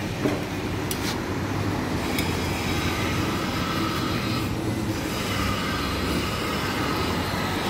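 A steady mechanical drone with a low hum, with a few light clicks about a second in and again near two seconds.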